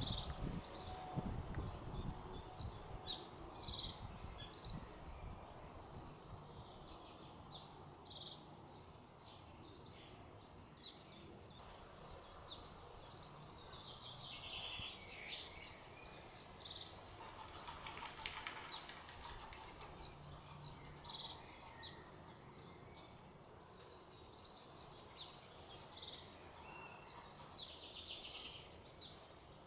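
Male common reed bunting singing: short, high, falling notes strung into brief stuttering phrases, repeated every second or two. A faint low background rumble sits underneath, strongest in the first few seconds.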